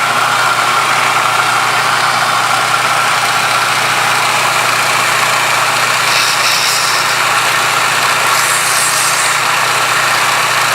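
Homemade 2x60 belt grinder running steadily: its old electric motor hums as the belt runs over skateboard-wheel idlers. Two short spells of higher hissing come in the second half.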